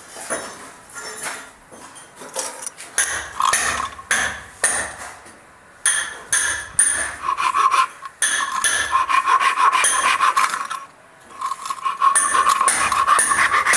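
Hacksaw blade sawing into a small wooden box, rasping back-and-forth strokes that come in quick runs from about three seconds in and turn louder and continuous near the end.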